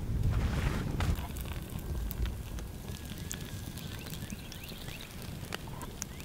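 Mesquite wood fire crackling inside a stacked sandstone rock oven, with scattered sharp pops over a low rumble.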